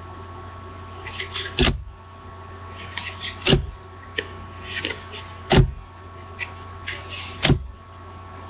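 Cardboard trading cards being flipped through by hand, one card at a time: a papery slide and crackle, then a dull thump, about every two seconds, four times. A steady electrical hum runs underneath.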